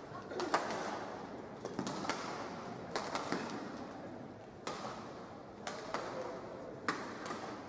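Badminton rackets striking the shuttlecock in a fast doubles rally: a string of sharp smacks, roughly one a second, ringing in a large hall.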